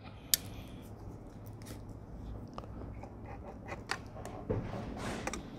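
Tape measure and pencil handled against a wooden picture frame while marking measurements: a sharp click about a third of a second in, then light ticks and a short scratch near the end.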